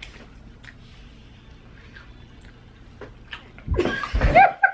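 Quiet room sound, then about three and a half seconds in a sudden loud burst of voice, gagging and laughing, with a low thump as someone jumps up, a reaction to a foul-tasting Bean Boozled jelly bean.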